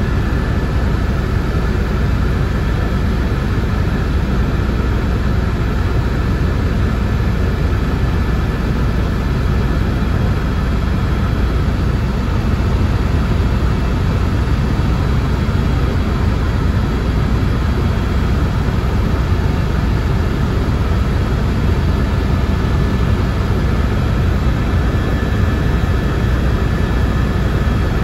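Helicopter's engine and rotor noise heard from inside the cabin: a loud, steady drone with a faint high whine above it.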